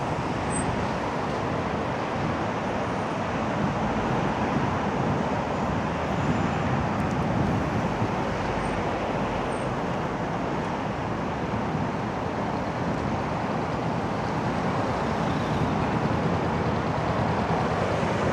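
Road traffic: a queue of lorries and cars idling and creeping forward, a steady rumble of engines and road noise.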